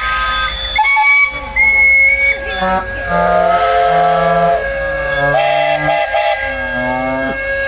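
Steam whistles on a lineup of traction engines, sounding together at many different pitches, from shrill to deep. Long held notes overlap with short toots, including a run of three quick toots past the middle, over a steady hiss of steam.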